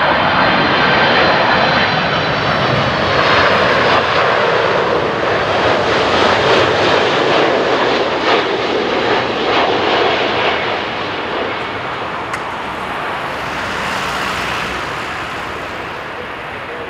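Boeing 767-300ER airliner flying low past on final approach, its twin turbofans making a loud, steady jet roar. A thin high whine rides on top for the first few seconds, and the roar slowly eases over the last several seconds as the jet moves on toward touchdown.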